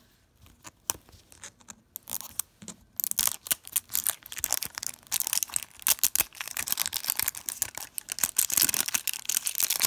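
Plastic wrapping of an LOL Surprise ball crinkling and tearing as it is peeled away by hand. A few scattered soft clicks at first, then from about three seconds in a dense, steady crackle.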